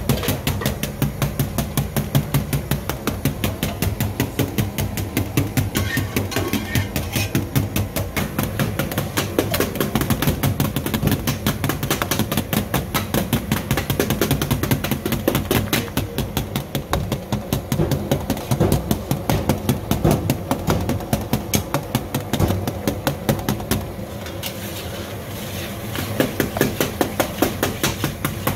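Metal spatula scraping and clattering against a steel karahi pan in rapid strokes, several a second, as meat is stirred in bubbling liquid, with a brief lull about 24 seconds in. A steady low hum runs underneath.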